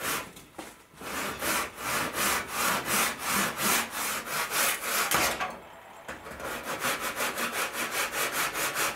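Hand saw cutting a long diagonal scarf cut through wood in quick, even rasping strokes, about three a second. The sawing stops briefly just after the start and again after about five and a half seconds, then carries on.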